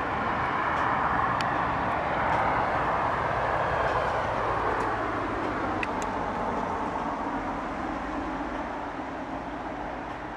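A freight train of log-loaded wagons running away along the track: a steady noise of wheels on the rails, loudest a few seconds in, then slowly fading, with a few faint clicks.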